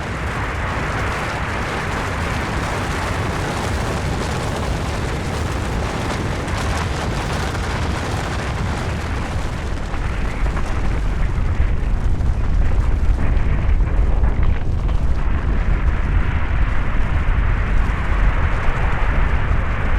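Snow and rock avalanche: a continuous rushing, rumbling noise, its deep low rumble growing heavier and louder about halfway through.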